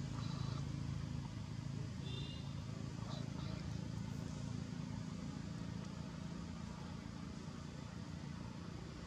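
A steady low motor hum, slowly fading, with a few faint short high-pitched chirps about two seconds in.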